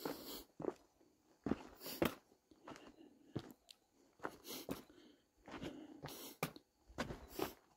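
A hiker's footsteps crunching on a dirt and rock trail while walking downhill, roughly one or two steps a second, with breathing heard every couple of seconds.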